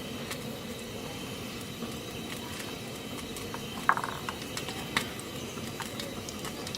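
Steady hiss of a stove burner under a pan of oil as it heats, with a few light clicks and one louder clatter about four seconds in.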